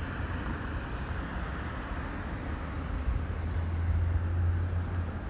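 Steady outdoor background rumble and hiss with no single clear source, and a deeper low rumble that swells from about three and a half seconds in and eases off near the end.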